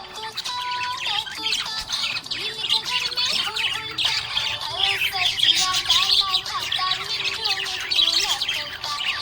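Budgerigars chirping and warbling, a busy, continuous chatter of overlapping high chirps with no breaks.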